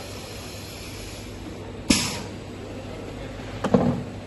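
Liquid bottle filling and packing line machinery running with a steady hum, broken by two sharp hissing bursts, one about two seconds in and one near the end.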